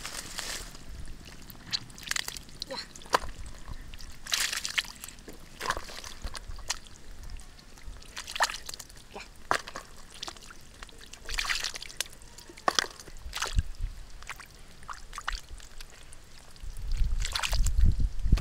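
Hands splashing and sloshing in shallow muddy water while groping for fish: irregular small splashes and trickles, with a louder low rumble near the end.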